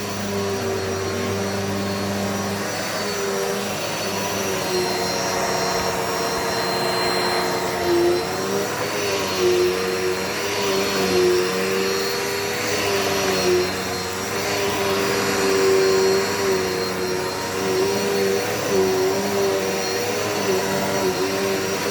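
Dirt Devil Multi-Surface vacuum cleaner running steadily, its motor hum dipping briefly in pitch now and then. From about eight seconds in, its sound swells and eases about every second and a half.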